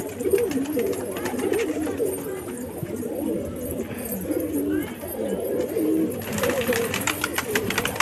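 Several domestic pigeons cooing at once, their low warbling calls overlapping continuously. Scattered clicks run through it, and a hissing rustle rises from about six seconds in.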